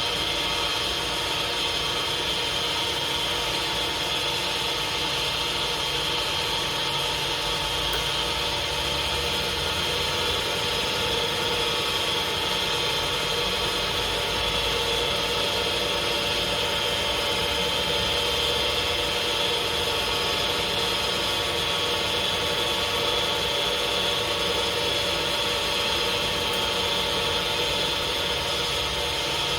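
Lathe running steadily, its motor and drive giving an even hum with a high whine over it.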